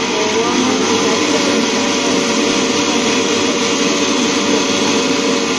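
Electric mixer grinder running steadily, its steel jar grinding dried Kashmiri chillies into powder: a loud, even motor whine over the grinding noise.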